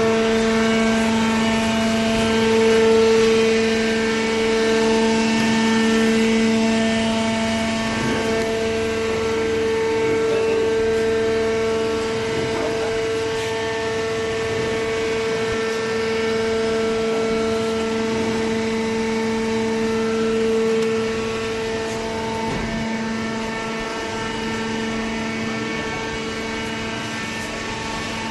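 Hydraulic baler's power unit (electric motor and hydraulic pump) running, a steady mechanical drone and whine that holds the same pitch throughout with slow small swells in loudness.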